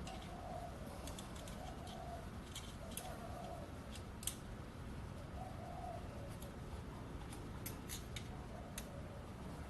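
A dove cooing faintly, one short coo every second or two, with scattered light clicks and taps of small metal parts being handled.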